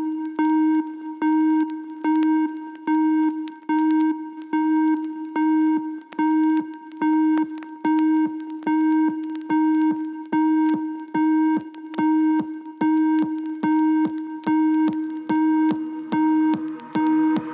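Old-school electronic dance music played from vinyl: a single synth note repeats in an even pulse over a drum-machine kick whose pitch drops on each beat. The kick grows stronger about five seconds in.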